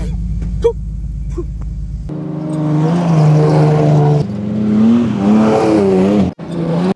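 Steady low wind rumble on the microphone, then from about two seconds in a Toyota Land Cruiser's engine revving hard as it powers up a sand dune. The engine's pitch holds, steps up and swings up and down with the throttle.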